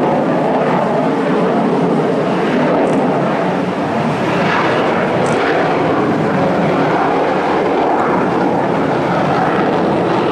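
F-15 fighter jet's twin turbofan engines running loud and steady as the jet climbs away after takeoff, heard as a continuous jet roar.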